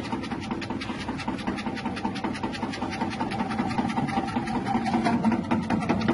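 Electric chip-slicing machine with a 180-watt motor running steadily: a motor hum under a rapid, continuous clatter of clicks.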